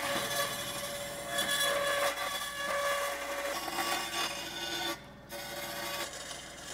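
Vertical band saw running and cutting through a cast aluminium Toyota transmission bell housing, a steady rasping cut over the saw's hum. The sound drops away briefly about five seconds in, then picks up again.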